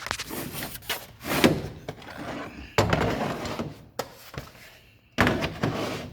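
Tools and drawers of a steel roll-cab toolbox being handled: scraping, rattling and clunks, with sudden louder clunks about three and five seconds in.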